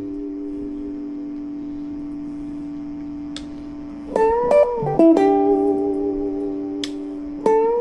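Cort CR50 electric guitar played through a Cort MX15R guitar amplifier. A held note rings on and slowly fades, then a few new notes come about four seconds in with a string bend up and back. Another long sustained note follows, and fresh notes are picked near the end.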